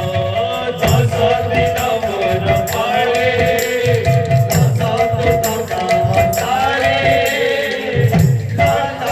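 Devotional kirtan music: a man singing into a microphone over a rhythmic drum and jingling hand cymbals, with steady held notes underneath.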